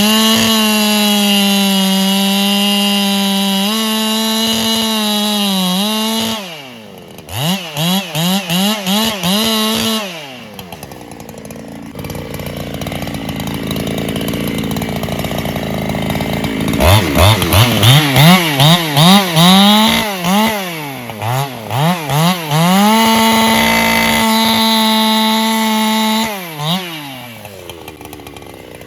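Solo 681 two-stroke chainsaw cutting at full throttle, revving and dropping in about a dozen quick throttle blips, falling to a lower idle in the middle, then cutting steadily again before dropping to idle near the end.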